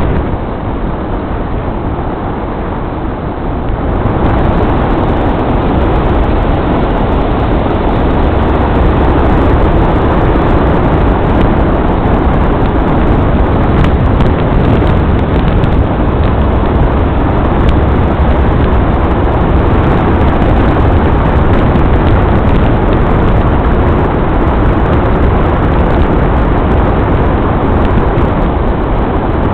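Steady road and engine noise of a vehicle driving, heard from on board, with no distinct events; it grows louder about four seconds in.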